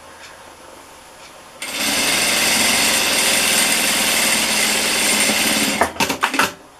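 Sewing machine stitching a seam through fabric: it starts about a second and a half in, runs at a steady speed for about four seconds, then gives a few short bursts as it stops and starts near the end.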